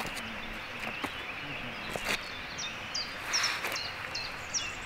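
Small birds chirping with short, high, downward notes, several in quick succession in the second half, over a steady outdoor hiss, with a few light clicks and a brief rustle of handling.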